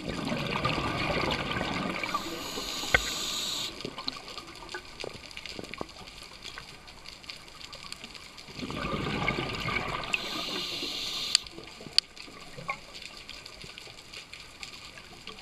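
Scuba diver breathing underwater through a regulator: two rushes of exhaled bubbles about eight seconds apart, each ending in a brief higher hiss, with a few sharp clicks.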